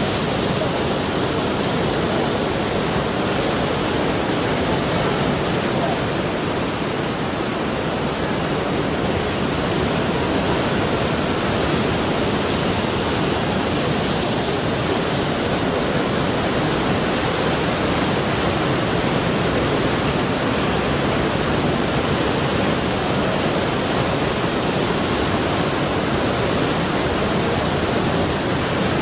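Sea surf breaking and foaming over coastal rocks: a steady, dense rush of water.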